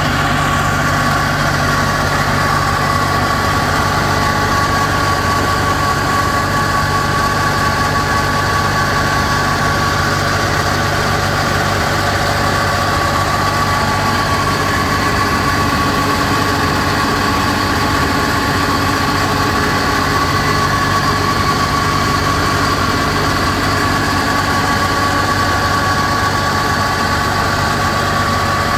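Small diesel engine of a reefer trailer's refrigeration unit running steadily at a constant speed, with a steady high whine over the engine note.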